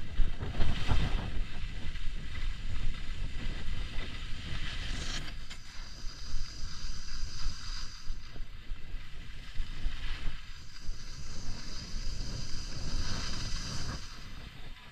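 Wind rumbling on the microphone of a moving action camera, with the hiss and scrape of edges carving over groomed snow, swelling in several surges as the rider turns.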